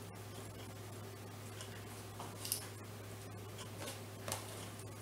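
Fresh spinach leaves being torn and handled by hand, a few faint rustles and soft snaps, over a steady low hum.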